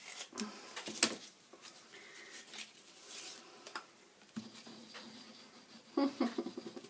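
Scissors snipping paper, with light paper handling: scattered small snips and clicks, the sharpest about a second in.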